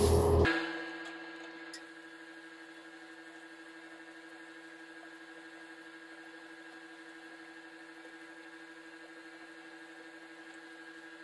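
A short hiss that cuts off about half a second in, then a faint, very steady hum holding a few fixed tones.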